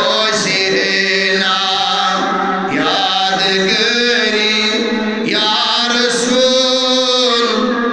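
A man chanting a Kashmiri naat, a devotional song in praise of the Prophet, into a microphone: three long melodic phrases with held, wavering notes.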